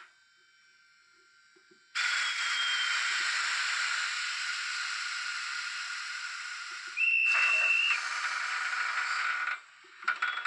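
Sound decoder in a Märklin Z scale ETA 150 railcar model playing a hiss of escaping air. The hiss starts abruptly about two seconds in and slowly fades. About seven seconds in, a louder steady high tone lasts about a second, and the hiss cuts off shortly before some clicks near the end.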